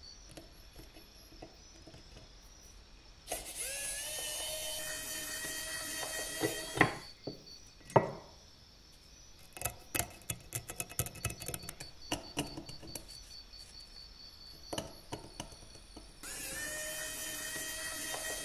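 Small pen-style rotary drill drilling out the rivets of a rusty metal aircraft model, its motor running with a steady high whine in two spells, about three seconds in and again near the end. In between come two sharp knocks and a run of light metal clicks and scrapes as the bit is worked in the rivet holes.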